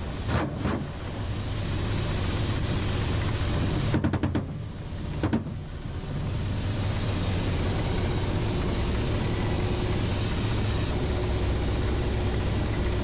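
Helicopter cockpit noise: the steady drone of the engines and rotor. There are two bangs at the start, a rapid burst of shots about four seconds in and one more a second later, as the helicopter's weapons fire on ground targets.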